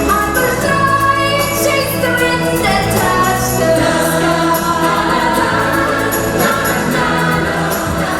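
Show music: a choir of voices singing over a backing track with sustained bass notes and a steady beat.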